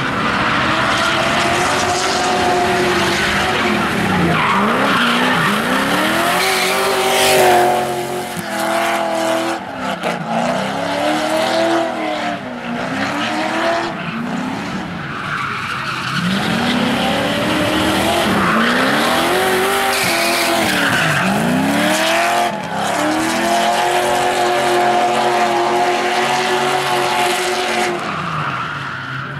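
Drift car sliding through repeated drifts: the engine revs up and down in long sweeps while the tyres spin and squeal against the tarmac.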